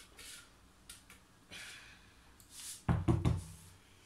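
Stainless-steel Thermomix mixing bowl knocking against its base as it is unlocked and lifted out: a short cluster of loud thunks about three seconds in, after a few seconds of faint handling sounds.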